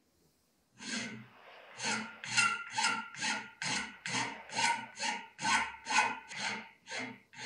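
A hand file rasping in regular strokes, about two a second, trimming the protruding pin and lanyard-tube ends flush on a knife handle. The filing starts about a second in.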